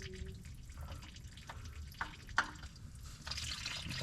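Engine oil dripping into a drain pan under the car while the oil filter comes off, with a few small clicks, the sharpest about two seconds in.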